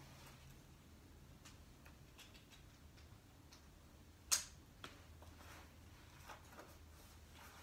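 Light clicks and handling of a waist pack's strap and buckle, with one sharp click about four seconds in as the plastic buckle snaps shut, and a few softer clicks after it.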